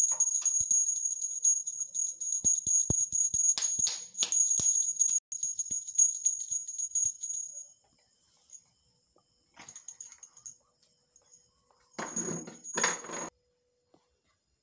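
Small brass puja hand bell rung rapidly and continuously during the lamp-waving (aarti), a dense high jangling with a steady ringing tone, which stops about seven and a half seconds in. Two short bursts of noise follow near the end.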